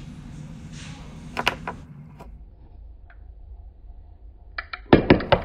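Light clicks of small plastic drone parts being handled, then near the end a sudden burst of laughter, loud and pulsing.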